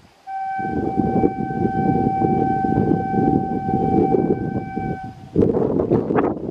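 Electric locomotive air horn, a WAP-5, sounding one long steady note for about five seconds as the express approaches, over a low rumble.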